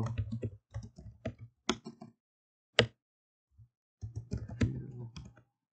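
Computer keyboard typing with mouse clicks: a run of key clicks, a single sharp click about three seconds in, then another quick run of key clicks.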